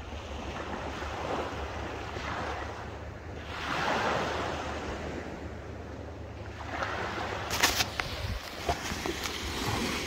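Small waves breaking and washing up on a coral-sand beach, the surf swelling and easing, with the loudest wash about four seconds in. Wind rumbles on the microphone underneath, and there are a few sharp clicks around eight seconds in.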